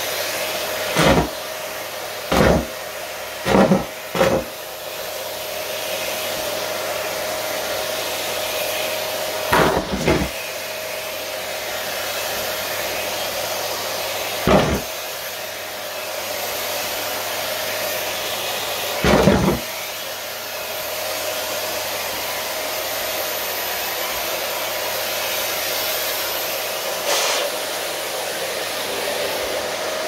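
Canister vacuum cleaner running steadily with a faint constant hum, while a booted foot stomps on the wooden floor several times. The thumps come at irregular intervals, four close together in the first few seconds.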